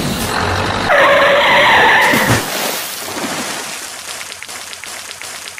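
A tyre-screech sound effect about a second in, lasting just over a second, then a fading hiss with small ticks.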